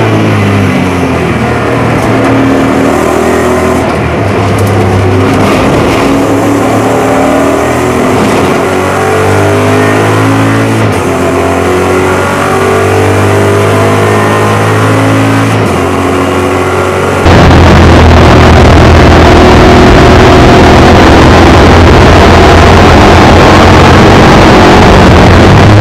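Maserati GranTurismo MC GT4 race car's V8, heard from inside the cockpit while lapping: the engine note climbs and falls again and again as it accelerates through the gears and shifts. About 17 seconds in the sound jumps louder to a steadier, rougher drone at high revs.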